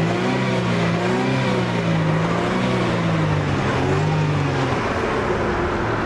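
Mercedes-Benz CLK 320's V6 engine revved gently up and down by repeated pumping of the accelerator pedal, rising and falling about once a second, then dropping back toward idle near the end.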